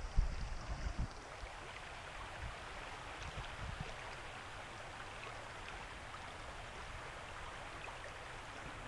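Small creek's flowing water, a steady even rush, with a few low bumps in the first second.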